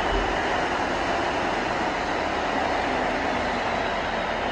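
Wamos Air Airbus A330 jet airliner running at the gate: a steady rushing rumble with a faint high whine.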